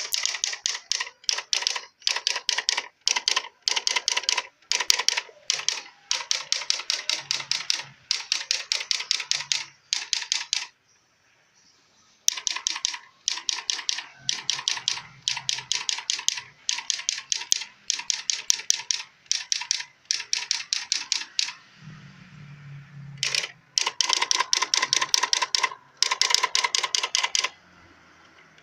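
Samsung SQ-1200 electronic typewriter striking characters: rapid runs of sharp clicks, several a second, broken by short pauses.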